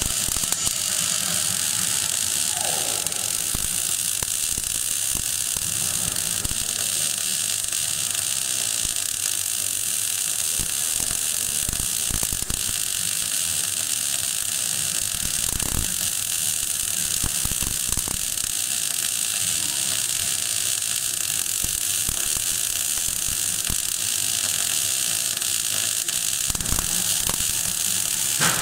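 MAG (gas metal arc) welding arc burning steadily with a continuous crackling hiss while a weld pass is run vertical-up on a 12 mm plate butt joint.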